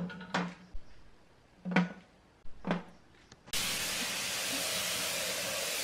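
A few short knocks as steel panel parts are set down on the stand, then about three and a half seconds in a compressed-air spray gun starts a steady hiss, spraying black paint onto the amplifier's bottom panel.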